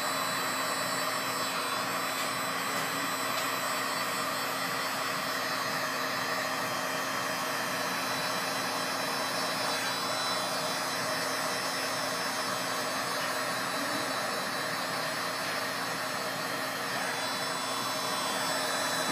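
DeWalt heat gun running steadily, its fan blowing a constant rush of hot air with a faint steady whine, used to heat out a scratch in marine-grade polymer.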